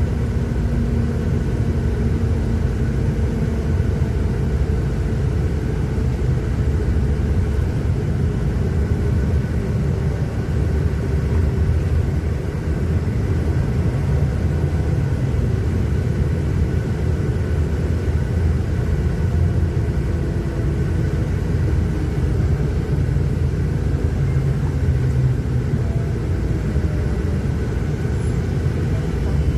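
Steady rumble of a moving motor vehicle: engine and road noise, with a faint engine tone that drifts slowly in pitch.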